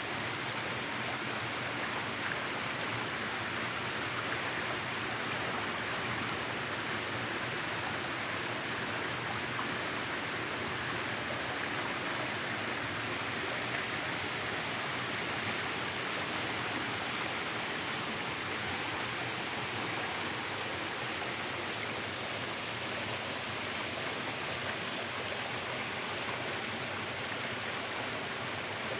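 Waterfall water rushing over rocks, a steady even rush with no breaks.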